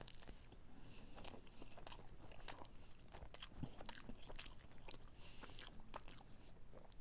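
A person biting into and chewing a cheese-stuffed fried chicken fillet, with faint, irregular mouth clicks and smacks. The breading has gone soft from sitting in a backpack, so the chewing is not crisp.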